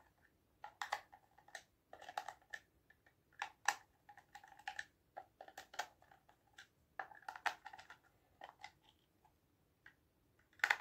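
Irregular small clicks, taps and short scrapes of a plastic wireless-speaker casing being handled and pried open, with one louder click near the end.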